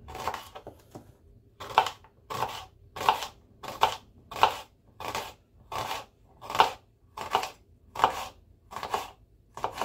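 Kitchen knife slicing a red onion on a plastic chopping board: a steady series of short cuts, about one and a half a second, each stroke going through the onion onto the board.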